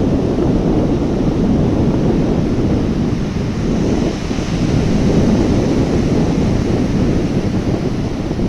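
Sea waves breaking and washing ashore in a continuous deep rumble, with a wave surging a little louder about four seconds in. Wind buffets the microphone.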